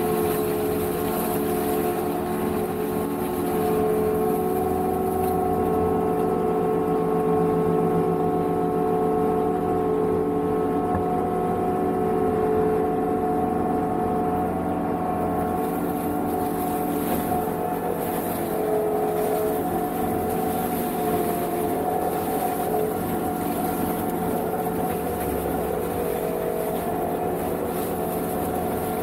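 Engine of an Energreen ILF S1500 self-propelled boom mower running steadily under working load, a constant drone holding several even tones with no change in speed.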